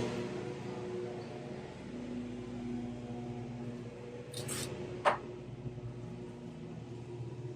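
Steady low hum of room noise, broken by a brief high hiss about four and a half seconds in and, just after it, one sharp click, the loudest sound.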